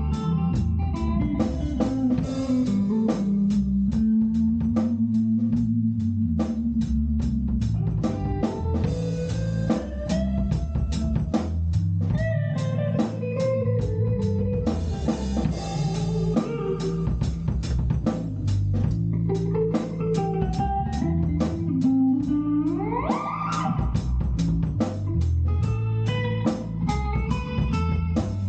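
Instrumental rock jam: a guitar plays a melodic line over bass and a drum kit keeping a steady beat, with a long upward slide in pitch about three-quarters of the way through.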